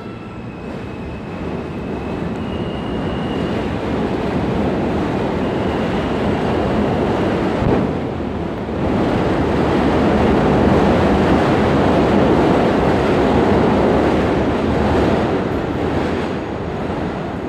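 R160B subway train (Alstom propulsion) pulling out of an elevated station and accelerating: a few faint motor tones step up in pitch at first, then wheels and cars make a loud, steady rumble on the steel structure that eases off near the end.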